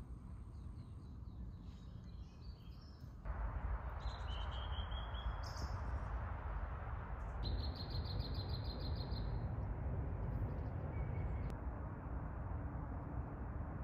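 Wild birds singing: scattered high chirps, short whistled notes and a fast repeated trill in the middle, over a steady rushing background noise that grows louder about three seconds in.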